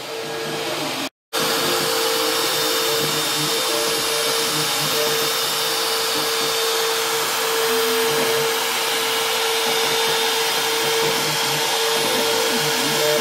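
Router motor on an Oliver 1013 CNC router running at speed with a steady whine as its bit carves foam insulation board, broken by a brief gap about a second in.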